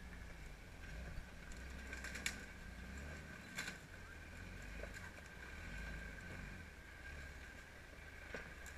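Lifted 4x4's engine running at low revs as it crawls over boulders, heard faint as a low, wavering rumble, with a couple of sharp clicks about two and three and a half seconds in.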